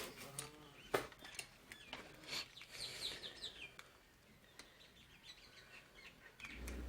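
Small birds chirping faintly in the background, with a few sharp clicks, the loudest about a second in.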